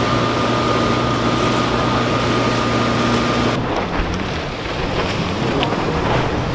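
Towboat engine running under way with water rushing off the wake and wind on the microphone; about three and a half seconds in the steady hum and hiss drop away to a rougher, duller mix of engine and water as the boat slows.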